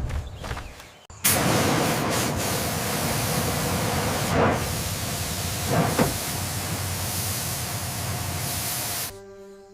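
A pressurised spray hissing steadily, starting about a second in and cutting off abruptly near the end.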